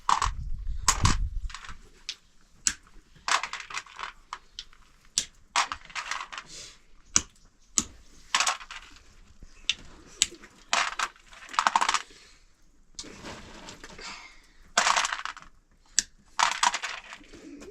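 Irregular sharp clicks, clinks and clattering knocks, like small hard objects being handled and knocked together, with a low rumble in about the first second.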